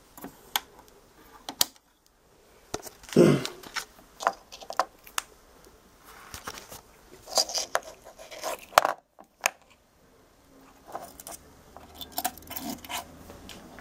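Small sharp clicks and rattles of alligator test clips and a paper-cased electrolytic capacitor being handled on a bench, with a louder short knock about three seconds in.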